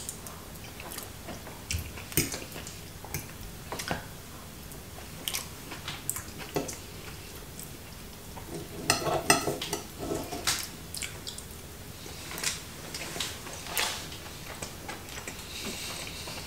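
Knife and fork clicking and scraping on a plate while a sausage is cut, with scattered single clinks and chewing between; the busiest run of scraping comes around the middle.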